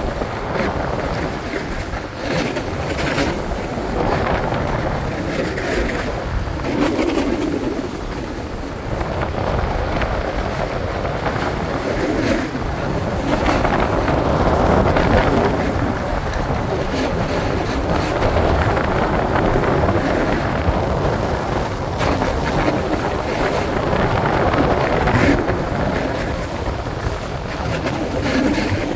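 Wind rushing over a phone microphone during a fast downhill run on skis or snowboard, mixed with the hiss and scrape of edges on packed, groomed snow, rising and falling over the run.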